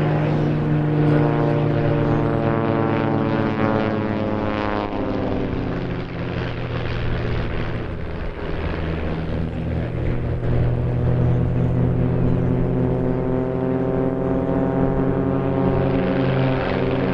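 Propeller-driven piston engines of aerobatic biplanes (Pitts S1 Special, Ultimate 10-300, Christen Eagle II) running together overhead, their pitches sliding up and down as the planes manoeuvre. The sound dips slightly about halfway through and swells again near the end.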